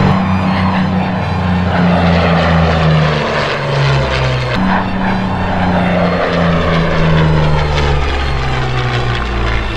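Piston-engined propeller aircraft flying, its engine note sliding up and down in pitch, over background music with a low bass line that changes note every second or two.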